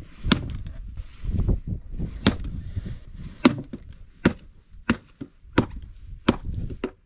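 Axe chopping into a knotty log that resists splitting: about seven sharp blows, the later ones coming roughly every two-thirds of a second.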